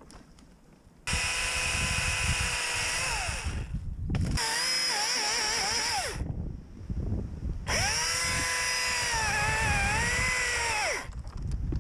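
Echo DCS-2500T battery top-handle chainsaw run three times, its electric motor and chain whining at a steady pitch that sags and wobbles as the chain cuts into wood. At the end of each run the pitch falls away as the trigger is released.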